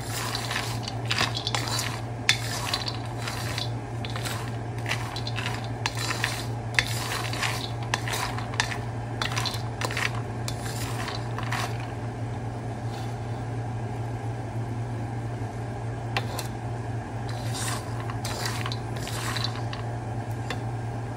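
Wooden spoon stirring almonds, pistachios and cashews around a wok as they roast, the nuts clicking and rattling against the pan. The clatter is dense at first and thins out after about twelve seconds, picking up again near the end, over a steady low hum.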